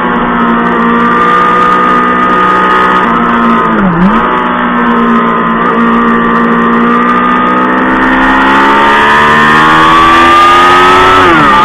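Honda Fireblade's inline-four engine running at high revs at speed. The pitch dips sharply and recovers about four seconds in, climbs slowly, then drops near the end.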